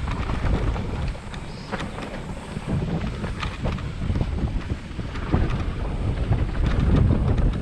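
Wind buffeting the microphone of a mountain bike riding downhill, a steady low rumble with many short knocks and rattles from the bike over rough trail.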